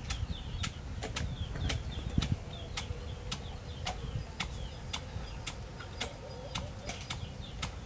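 A heavy wooden pestle pounding roasted peanuts in a mortar, crushing them for peanut salt, in steady strokes about three a second. Small birds chirp faintly in the background.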